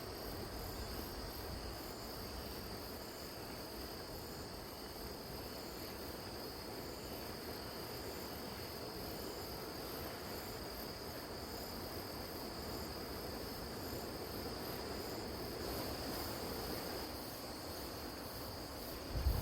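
Grass insects (crickets) calling steadily in a constant high trill, with a quicker pulsing chirp above it, over a soft low rushing in the background.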